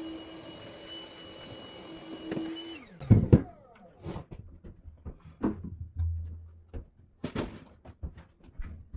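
An electric power tool's motor running at a steady pitch, switched off a little under three seconds in and winding down in pitch. Scattered knocks and clatter of handling follow, the loudest two sharp knocks coming just after the motor stops.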